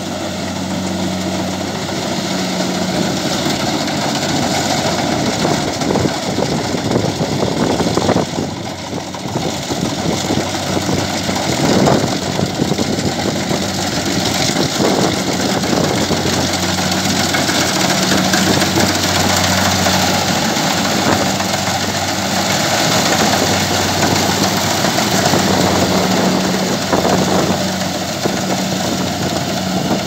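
Kubota rice combine harvester's engine running steadily as the machine cuts its way through standing rice, a steady low hum under a wide mechanical noise.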